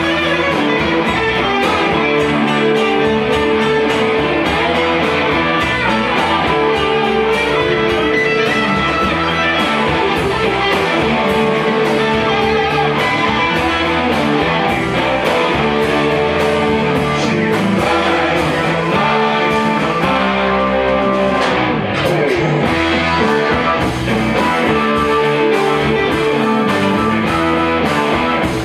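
Live rock band playing loudly, several electric guitars to the fore over drums and keyboard.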